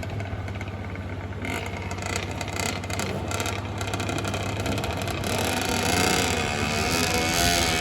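Motor vehicle engine drawing closer and growing louder, its pitch wavering in the last few seconds.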